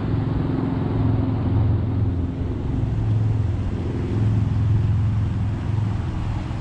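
A steady low mechanical hum, swelling and easing a little every second or so, over a rushing background noise.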